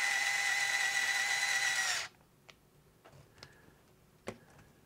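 Small electric screwdriver running with a steady whine as it drives the side screw that holds a kingpin in an aluminium RC axle carrier. It cuts off abruptly about two seconds in, followed by a few faint clicks.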